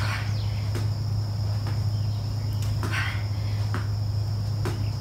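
Shoes knocking softly on a padded exercise mat about once a second during slow mountain climbers, some steps with a brief breath, over a steady low hum and a steady high insect whine.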